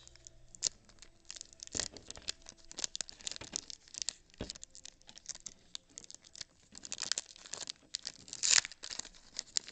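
A foil trading-card pack crinkling and tearing open, and the cards being handled, as a scatter of sharp crackles and clicks.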